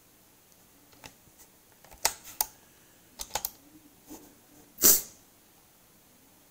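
Computer keyboard keystrokes: a handful of short, sharp key clicks at irregular intervals, some in quick pairs or triples, the loudest about five seconds in.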